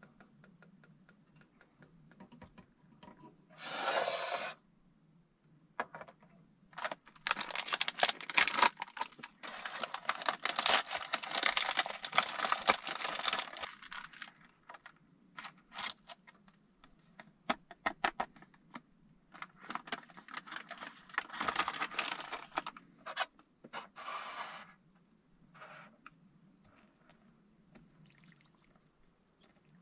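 Hands preparing food in a stainless steel camping cup: a packet crinkling and food being tipped into the cup of hot water, then a metal spoon scraping and stirring inside the cup. The loudest part is a spell of dense crackling in the middle, with a short hiss about four seconds in.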